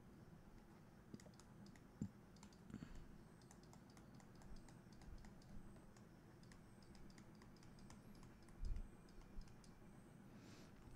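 Near silence broken by faint, scattered clicks and taps of a stylus writing on a digital tablet, with a couple of soft low thumps.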